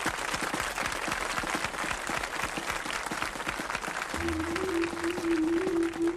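Audience applauding with dense clapping. About four seconds in, the music begins with a held low note and a steady higher note under the continuing claps.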